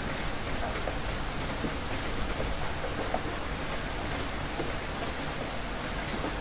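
Heavy rain falling steadily: a dense, even hiss of rain on surfaces, with scattered individual drop splashes.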